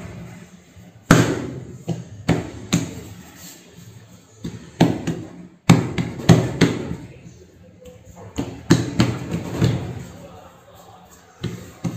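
Hands patting and pressing bread dough flat on a silicone mat over a steel counter: a dozen or so sharp thumps and slaps in loose clusters, with quieter handling of the dough between them.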